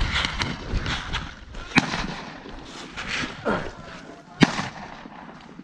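Rustling of gear and grass close to the microphone, then two sharp single gunshot cracks, one about two seconds in and one near the end, with a distant shout in between.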